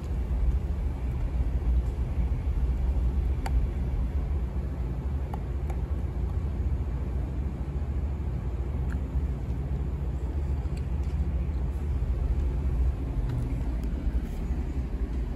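Steady low rumble of passing road traffic, with a few faint clicks.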